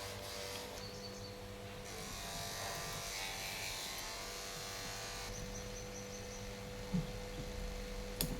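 Steady electrical hum and buzz, with a sharp click about seven seconds in.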